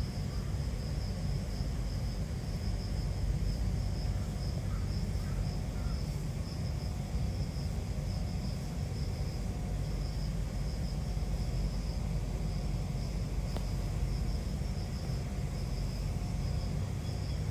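Insects chirring steadily in a high, pulsing drone over a low outdoor rumble.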